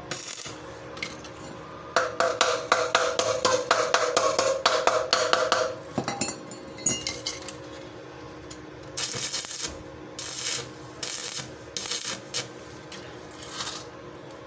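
Metal scraping and rubbing on a motorcycle sidewheel hub being worked by hand: a quick, rattling run of short strokes with a metallic ring, then several separate longer strokes about a second apart.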